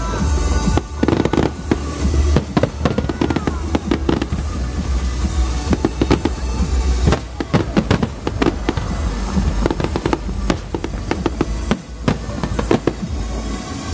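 Fireworks display: aerial shells bursting in rapid succession, many sharp bangs over a continuous low rumble.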